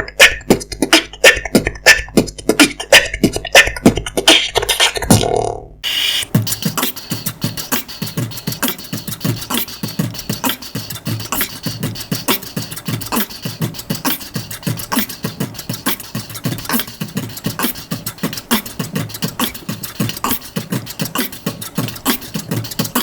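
Beatboxing: a vocal percussion beat of mouth-made kicks, snares and hi-hats in a steady rhythm. About five and a half seconds in it breaks off and gives way to a quieter, faster and busier beat.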